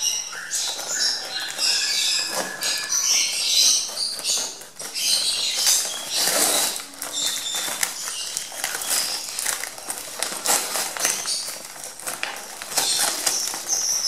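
A taped cardboard parcel being torn open by hand around a wire bird-shipping cage: repeated tearing, crackling and rustling of cardboard, tape and paper. Short high chirps from the young lovebirds inside come through, mostly in the first few seconds and again near the end.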